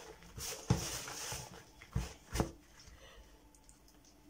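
Hand mixing and kneading soft dough in a plastic mixing bowl, with three dull thumps in the first two and a half seconds as the hand presses the dough against the bowl, then quieter squishing.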